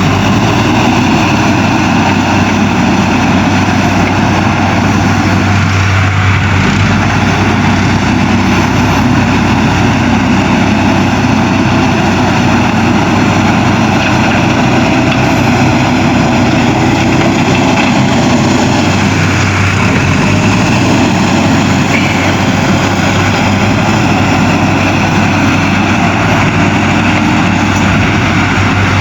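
Diesel engine of a JCB 3DX backhoe loader running steadily as the machine digs, with no pauses.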